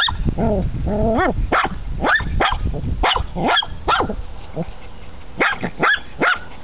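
Small spitz-type dog yapping repeatedly in short, sharp, high-pitched barks, excited at a mole in the grass.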